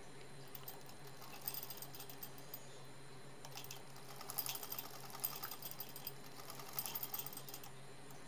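Domestic sewing machine stitching through layered fabric in three short runs of rapid, even clicking, with brief pauses between them.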